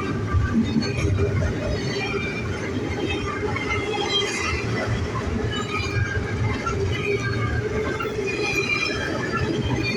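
Double-stack freight train rolling past: a steady rumble of wheels on rail, with scattered short high-pitched squeaks and squeals from the wheels and cars.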